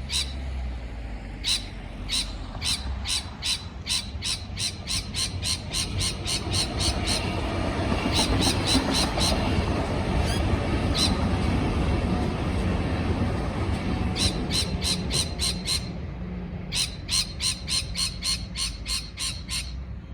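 A parrot giving runs of short, sharp calls, about three a second, repeated in several bursts. A steady low rumble underlies it, with a louder noisy wash in the middle.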